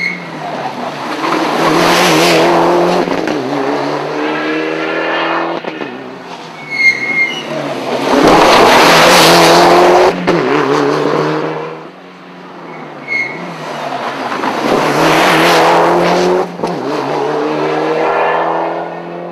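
Mitsubishi Lancer Evolution VII Group N rally car's turbocharged four-cylinder engine going past at speed three times, revving up and down through the gears. A short high chirp comes just before each pass.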